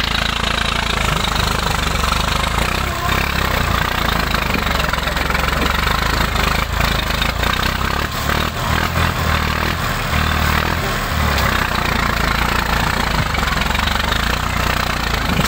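Massey Ferguson 240 tractor's three-cylinder diesel engine running continuously, its low rumble uneven for a few seconds near the middle, with a few sharp knocks over it.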